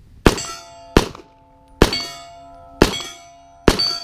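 Five pistol shots about a second apart, each followed by the ringing of struck steel plate targets, the ringing carrying on after the last shot.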